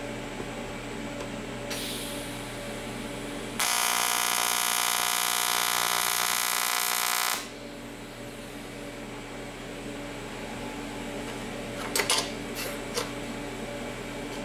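AC TIG welding arc on 1/8-inch aluminium, at a fixed 140 amps on an on-off switch, buzzing steadily for about four seconds while a tack is laid. It starts and stops abruptly, with no amperage taper at the end. A few light metal clicks follow near the end as the plates are handled.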